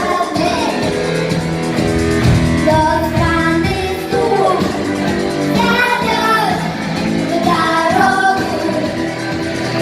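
Singers performing a rock song together with a band accompaniment that includes guitar and a steady beat, played live at a rehearsal.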